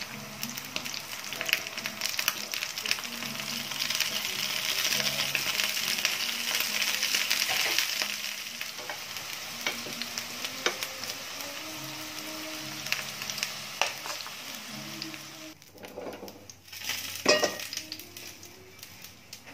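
Halved eggplants sizzling in a shallow layer of cooking oil in a frying pan, the hiss swelling for a few seconds and then settling, with light clicks of tongs turning the pieces. Near the end the sizzling stops and a single sharp knock follows.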